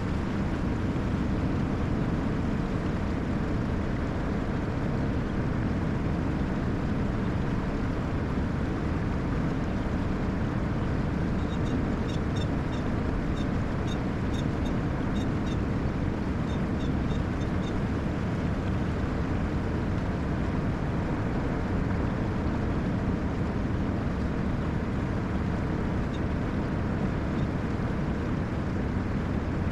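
Snowmelt-swollen water rushing steadily through a lake drain's outflow channel, a continuous low-heavy rush of fast-flowing water. A run of short, high chirps repeats for several seconds midway.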